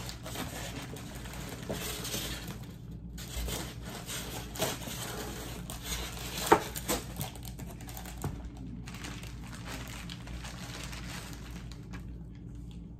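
Plastic bubble wrap crinkling and crackling as it is handled and pulled out of a cardboard box, with one sharp crackle about halfway through; the handling noise quietens over the last few seconds.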